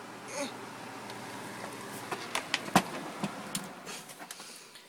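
Electric fan running steadily with an even whooshing hum, with a few knocks and clicks of handling about two to three and a half seconds in, the loudest nearly three seconds in.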